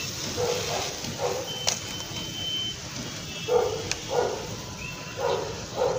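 A dog barking in short barks that come in pairs, three pairs in all. A thin high tone sounds for about a second in between.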